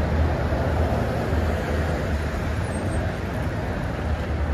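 Steady city road traffic: a continuous rush of passing vehicles with a low engine rumble underneath.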